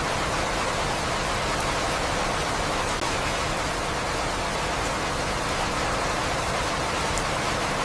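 Steady rain falling, an even unbroken hiss with a few faint high drop ticks.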